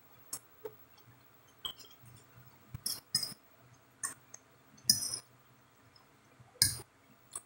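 Close-up eating sounds: chewing and wet mouth clicks, with a fork clinking against the plate a few times, in about ten short, scattered sounds.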